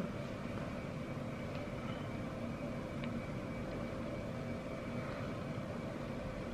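Steady low background hum and hiss (room tone) with a couple of faint ticks; the cream being poured makes no sound of its own.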